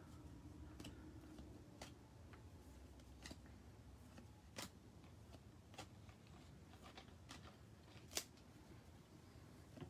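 Faint handling of a stack of trading cards: soft, scattered clicks and snaps as single cards are slid off the pack and flipped to the front, about one every second, the loudest near the end.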